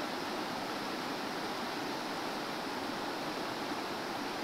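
River water rushing steadily over shallow rapids, the river running full after heavy rains.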